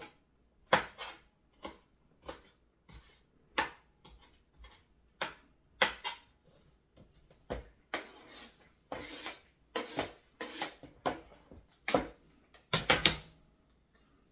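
Kitchen utensils and cookware knocking and clinking in irregular strikes, with a few longer scraping strokes about two-thirds of the way through and a quick cluster of knocks near the end.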